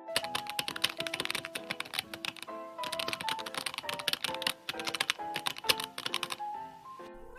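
Rapid typewriter key clatter in two runs, the first about two and a half seconds long and the second, after a short pause, about three and a half seconds, stopping about a second before the end. Light melodic background music plays underneath.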